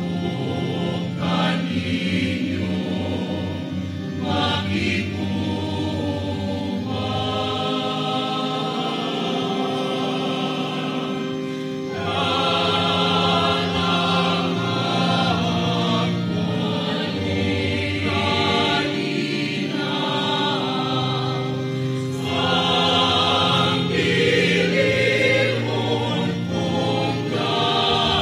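Mixed church choir of men's, women's and children's voices singing a hymn in sustained, held chords. The choir grows louder about twelve seconds in.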